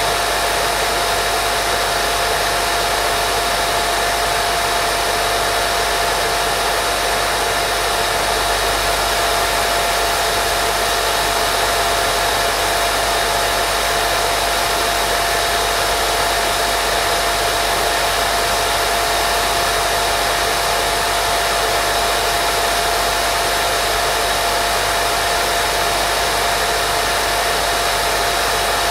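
Continuous white noise for baby sleep: a steady, unchanging hiss with a faint steady hum tone running through it.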